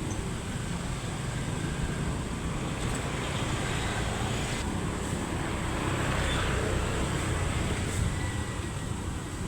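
Steady rumble of road traffic mixed with wind noise on the microphone.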